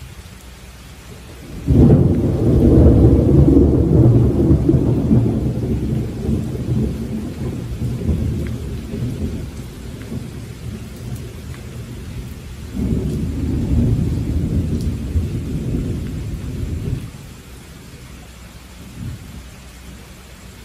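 Steady rain with thunder. A loud, deep rumble breaks in about two seconds in and slowly dies away, and a second rumble comes about thirteen seconds in and stops short some four seconds later.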